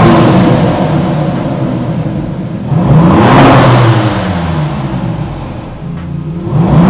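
A 2023 Maserati MC20 Cielo's 3.0-litre twin-turbo V6 being revved while the car stands still. It opens at the top of one rev and falls back, then two more quick blips, about three seconds in and near the end, each climbing sharply and dropping back toward idle.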